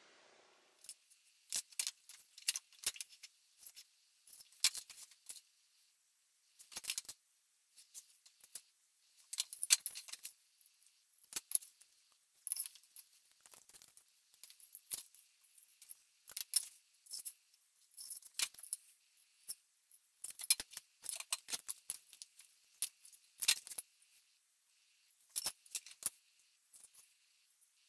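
Light, high clicks, taps and short scrapes of a steel rule, metal square and pencil handled against a wooden knife block, coming in irregular clusters with quiet gaps between.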